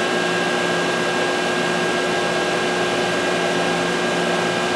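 PMC 5VT20 CNC vertical machining center powered up and running: a steady whirring hum with a few constant tones while the Z axis is homed.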